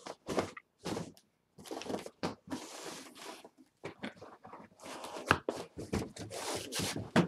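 Cardboard boxes and packing being handled: irregular rustling, scraping and light knocks of cardboard against cardboard as an inner box is pulled out of a shipping carton.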